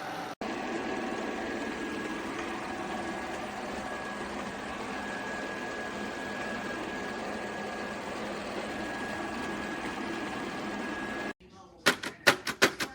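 Shark robot vacuum running with a steady motor noise and a faint high whine, cutting off abruptly near the end. A quick series of sharp clicks follows.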